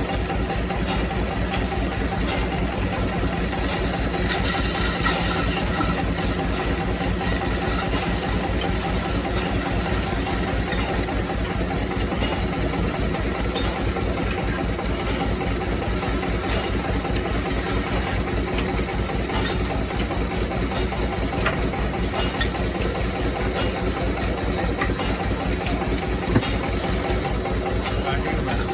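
Wood lathe running steadily while turning a wooden sofa railing part, with a hissing noise over the motor's steady hum and a fast, even low pulse.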